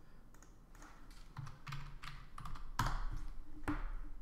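Computer keyboard typing: scattered keystrokes, with the two sharpest strikes about three seconds in and near the end.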